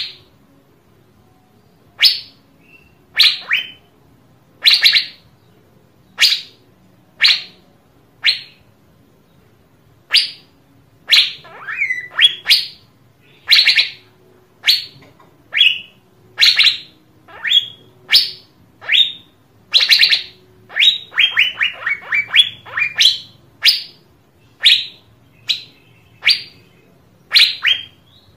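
Asian fairy-bluebird calling with short, sharp notes, about one a second, with a quick run of falling notes a little past two-thirds of the way through.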